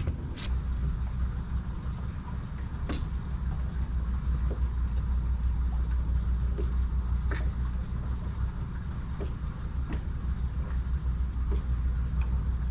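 Wind buffeting the camera microphone: a continuous, unsteady low rumble, with a few faint scattered clicks and taps over it.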